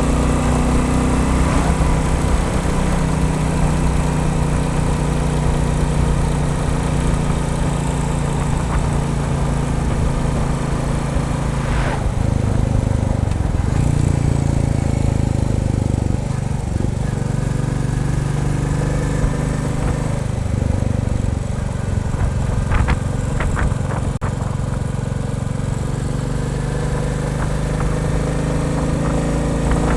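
Royal Enfield Bullet 350's single-cylinder engine running under way, its pitch shifting up and down several times with changing revs, with a few short clicks in the middle.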